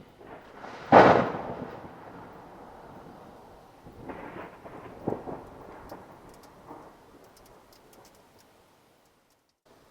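Thunder: a sharp clap about a second in, then rolling rumbles that come back in a few weaker swells and die away.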